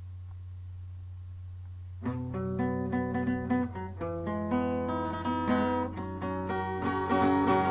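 A steady low hum, then guitar music starting about two seconds in, with individual notes picked in a quick run that grows fuller and louder.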